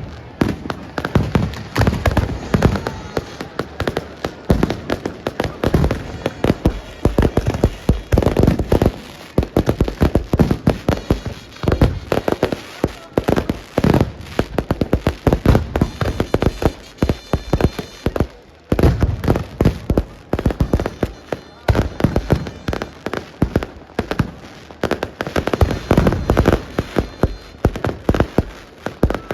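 Fireworks going off in a dense, unbroken barrage: many sharp bangs and crackles every second, with heavier booms now and then.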